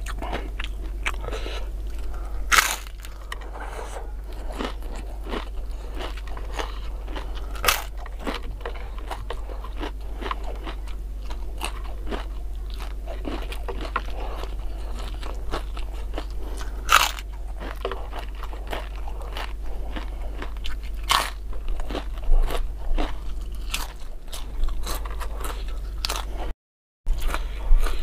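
Close-miked crunching and chewing of crisp fried gorengan fritters with raw green bird's eye chili, with a sharp loud crunch of a bite every few seconds, over a steady low hum.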